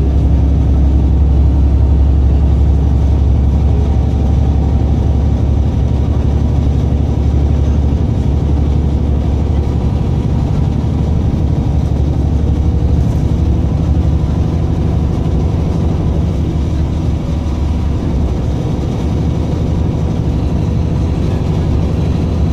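Inside a moving city bus: the engine and road noise make a steady low rumble as the bus drives along.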